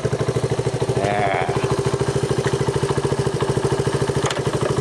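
Honda TRX 125 ATV's single-cylinder four-stroke engine idling with a steady, even beat. A single sharp click sounds about four seconds in.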